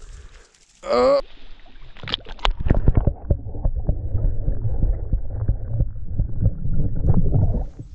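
Muffled underwater water noise picked up by a submerged camera microphone: low sloshing and gurgling with many scattered knocks and clicks, starting about two seconds in.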